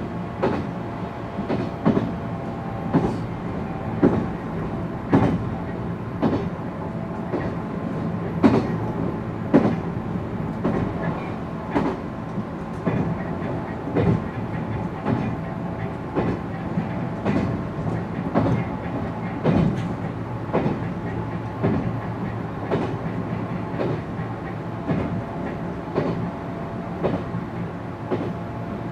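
Inside a JR 719 series thyristor phase-controlled AC electric multiple unit car running between stations. The wheels click over rail joints about once a second, some clicks coming in pairs. Under them runs a steady drone, the jet-like abnormal noise this particular car was known for.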